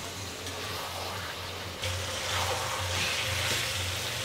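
Chicken curry sizzling in an iron karai as it is stirred with a spatula. The hiss grows louder and fuller about two seconds in.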